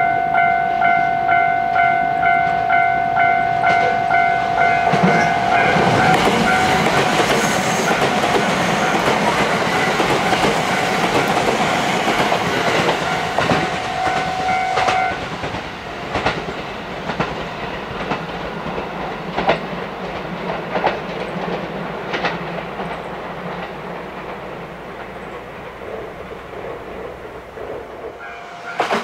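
JR West 227 series electric train climbing a steep grade toward the listener, its running noise building and then passing with rail-joint clacks. A railway crossing bell rings about twice a second through the first half and stops about fifteen seconds in.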